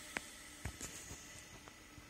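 Faint hum of an electric motor with a wheel on its shaft, fading as it spins down, with a sharp click near the start and a few light knocks.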